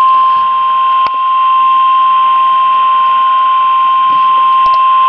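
Emergency alert attention tone: a single steady high beep, the NOAA Weather Radio warning alarm tone, played through a radio speaker and announcing a new tornado warning. There is a brief dip about a second in.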